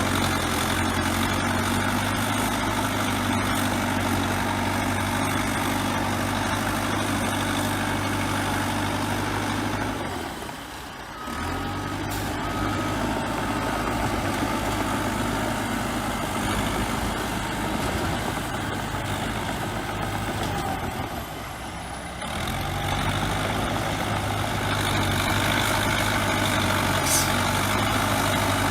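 Bulldozer diesel engine running steadily under work, with a reversing alarm beeping three times about twelve seconds in. The engine sound drops away briefly twice.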